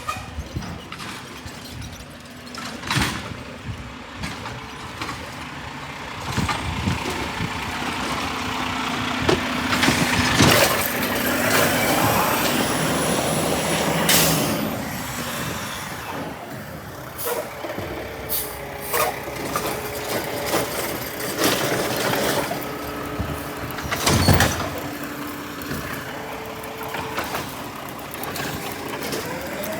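Heavy truck working close by, with air-brake hisses and several sharp bangs, the loudest about 24 seconds in; a steady pair of tones sounds on and off in the second half.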